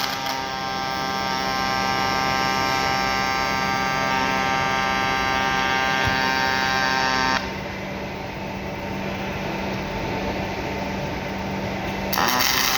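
Robotic MAG welding arc on 3 mm stainless steel: a steady electric buzz made of many even tones. About seven seconds in it drops to a softer hiss, and the buzz returns near the end.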